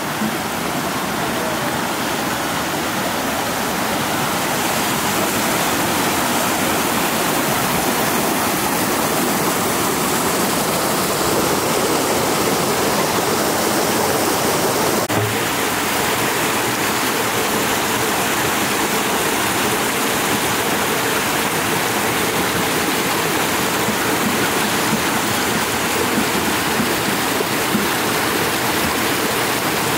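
Small rocky mountain stream rushing and splashing over stones in a steady rush of water.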